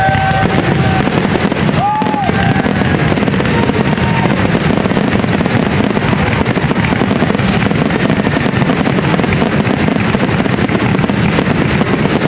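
Aerial fireworks going off in a dense, continuous barrage, with shell bursts and crackle piling on top of one another. A couple of short rising-and-falling whistles come near the start and about two seconds in.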